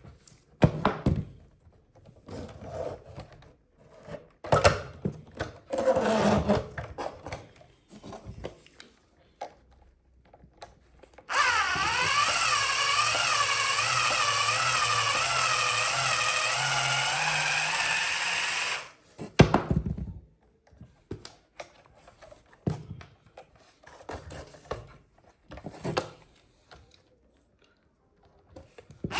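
Radio-controlled toy construction vehicles working: scattered knocks and clicks of plastic parts. After about eleven seconds comes a steady whirring drone whose pitch wavers up and down, which stops abruptly about seven seconds later, followed by a few more knocks.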